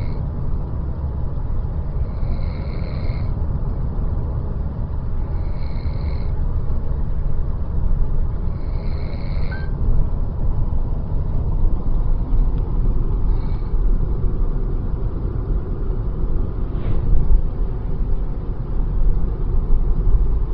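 A person snoring: a steady low rumble, with a short high whistle on the breath about every three seconds in the first half.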